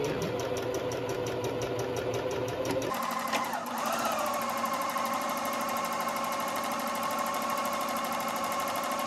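Electric sewing machine running steadily, stitching coiled cotton clothesline rope together. About three seconds in the sound changes abruptly: the rapid stitching rhythm gives way to a steadier, higher whine.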